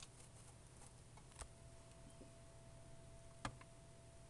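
Near silence: faint room tone with a steady faint hum and three short soft clicks, the loudest about three and a half seconds in.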